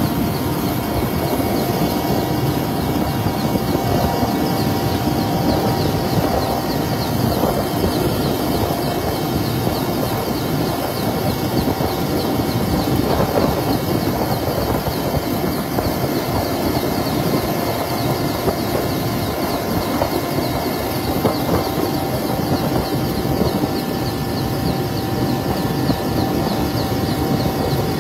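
Navy helicopter's engine and rotor noise heard from inside the cabin: a loud, steady drone with a few steady whining tones over it.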